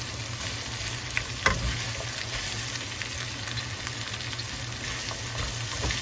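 Sliced bell peppers and onions sizzling in a hot skillet as they are tossed with silicone-tipped tongs, with two light clicks a little over a second in.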